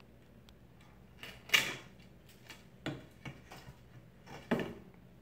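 Painted wooden window molding being pried off the frame: a few sharp cracks and creaks of wood. The loudest comes about a second and a half in, and two more follow near three and four and a half seconds.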